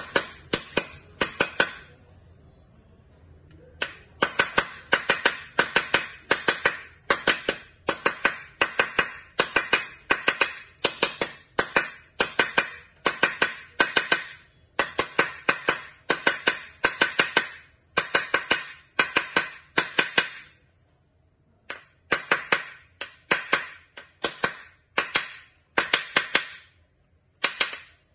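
Ratchet wrench clicking in quick bursts of several metallic clicks, about one burst every half second, as it is swung back and forth on the bearing's pivot bolt, with two short pauses.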